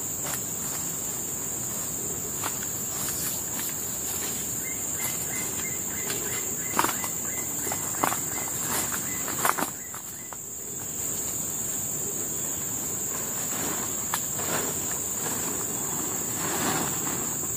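Steady high-pitched drone of insects, with a few sharp knocks about seven, eight and nine and a half seconds in.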